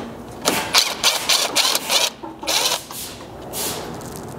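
Cordless impact driver with a 10 mm socket running in a series of short bursts, backing out the screws across the truck's front radiator support.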